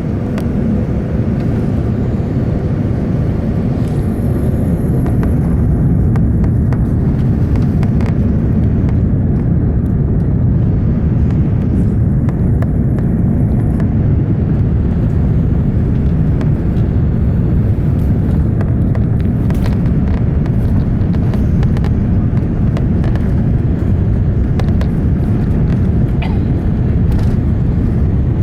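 Steady low rumble inside the upper-deck cabin of an Airbus A380-800, from its Rolls-Royce Trent 900 engines and airframe, rising a little at first and then holding level, with a few faint light clicks.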